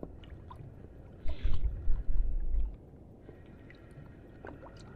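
Water slapping and gurgling against the hull of a small inflatable boat, in low rumbling surges between about one and three seconds in.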